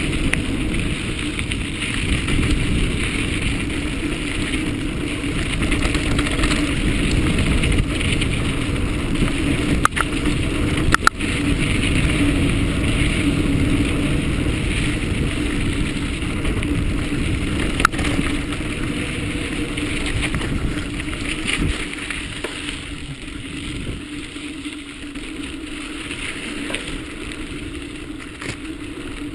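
Mountain bike rolling fast over a sandy dirt singletrack: steady tyre and wind noise with bike rattle, and a few sharp knocks about ten, eleven and eighteen seconds in. It eases somewhat over the last third.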